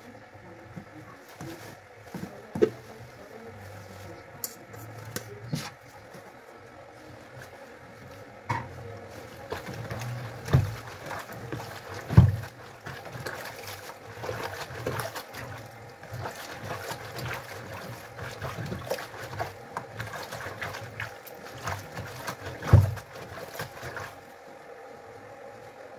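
Hands washing cowpea leaves (kunde) in a plastic basin of water: swishing, dripping and splashing with small clicks, and several knocks against the steel sink, the loudest about halfway and near the end.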